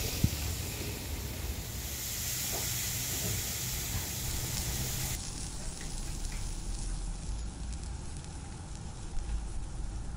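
Picanha fat cap sizzling as it sears on a grill grate over live coals, with rendered fat flaring up in the fire below. There is a brief thump right at the start.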